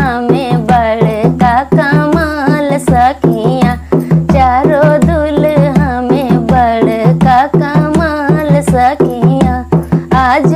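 A woman singing a folk song in a wavering, ornamented melody. She accompanies herself on a rope-tensioned dholak, played in a quick, steady rhythm.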